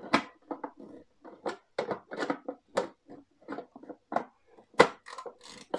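Clear plastic feed tube and lid of a Tristar PD 8780 food processor being handled and fitted onto the bowl: a run of irregular plastic knocks and clicks, with sharper knocks about three seconds in and near the end.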